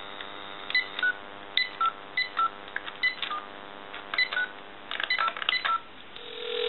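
GE DECT 6.0 cordless telephone dialling out: a string of short touch-tone (DTMF) beeps, one for each digit, in uneven groups. Near the end a steady tone comes on the line, the ringback as the call to the time-and-temperature number goes through.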